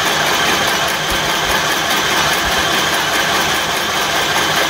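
Fanghua FHSM-318 mini electric sewing machine running steadily, winding thread onto its bobbin.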